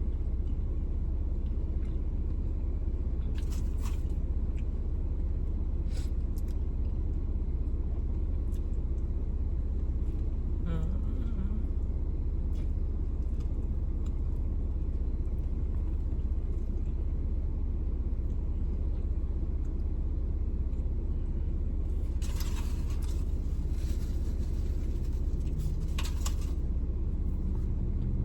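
Steady low rumble of a car engine idling, heard from inside the cabin, with a few brief crackles scattered through it, including a cluster near the end.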